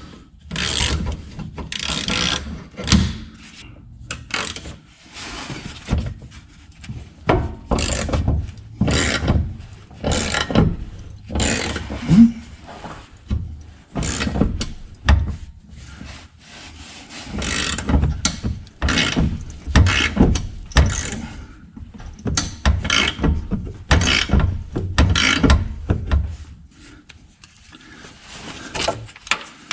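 Hand ratchet wrench worked in repeated strokes, clicking, with knocks of metal tools in between, in short runs separated by brief pauses.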